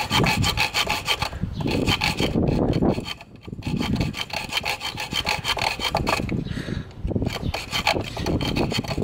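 Hand-held hacksaw blade sawing back and forth across the head of a five-sided Torx screw on a Toyota idle air control valve, in quick even strokes of metal rasping on metal with a brief pause about three seconds in. It is cutting a straight slot so that the screw can be turned with a flat-blade screwdriver.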